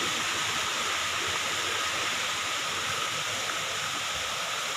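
Small waterfall's water rushing steadily, a constant hiss of falling and flowing water.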